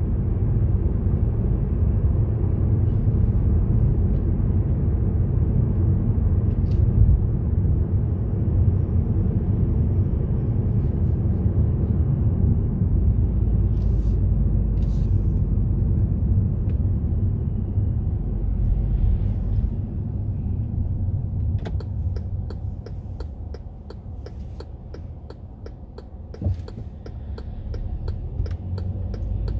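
Car driving on a road: a steady low rumble of engine and tyre noise, which eases off about two-thirds of the way through as the car slows. Over the last several seconds comes a run of quick, sharp ticks, with a single knock near the end.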